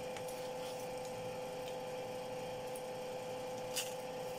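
Faint rubbing and tearing of peeled pomelo segments being pulled apart by hand, with a few light clicks and a sharper one near the end, over a steady background hum.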